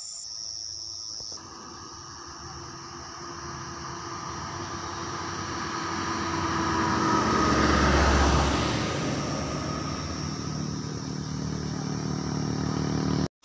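A truck passing close by on the road, its engine and tyres growing louder to a peak about eight seconds in, then fading. A steady high chirring of crickets continues underneath.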